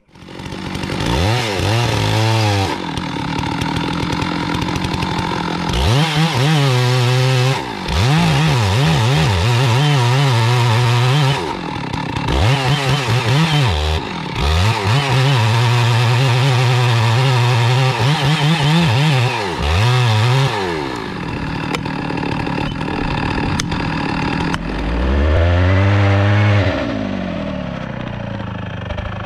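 Two-stroke chainsaw cutting into the trunk of a large tree, held at full throttle for stretches of several seconds and dropping back briefly between them. For the last several seconds it idles, with one more rev up and down near the end.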